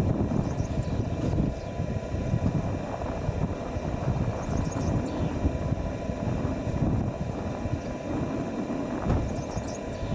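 Steady low rumble of wind buffeting the microphone outdoors, with faint high bird chirps three times.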